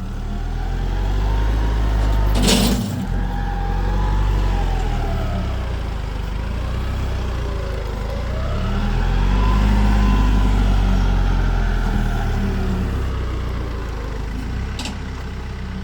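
A vehicle engine running steadily, its pitch rising and falling slowly, with a single sharp clank about two and a half seconds in.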